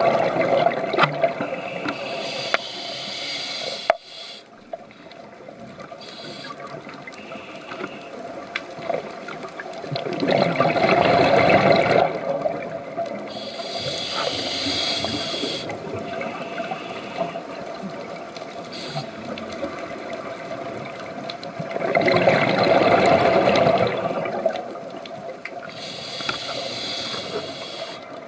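Scuba diver breathing through a regulator underwater: three bubbling exhales, the first at the start and the next two about 10 and 22 seconds in, each followed by the hiss of an inhale through the regulator.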